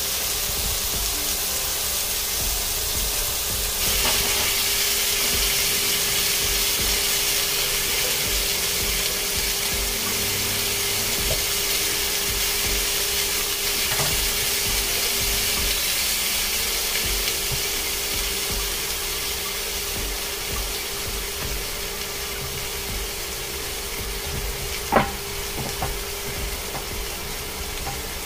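Sous-vide T-bone steak searing in butter in a nonstick wok: a steady frying sizzle that grows louder about four seconds in and slowly eases toward the end. One sharp click near the end.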